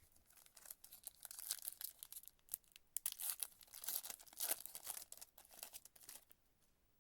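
A trading card pack's wrapper being torn open and crinkled by hand, in irregular crackling bursts that stop about six seconds in.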